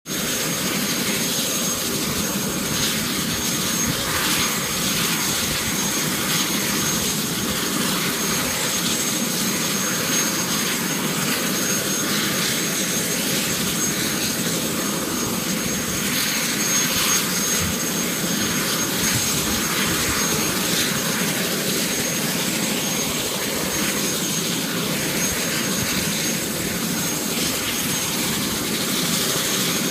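Eurocopter EC130 helicopter's turbine engine running steadily on the ground: a constant whine with one thin high tone over an even rush of noise.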